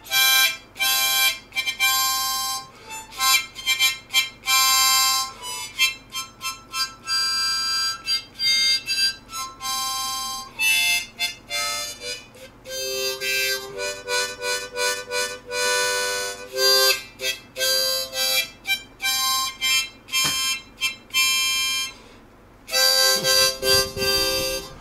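Background music: an instrumental tune played in quick, chopped chords and short phrases.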